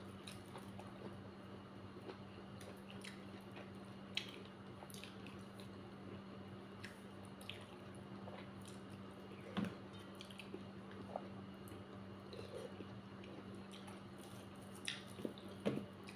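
Close-up eating sounds: chewing and mouth clicks while eating dhedo, a thick Nepali grain porridge, with curry. Small clicks throughout, a few louder ones about four and nine seconds in and a cluster near the end, over a steady low hum.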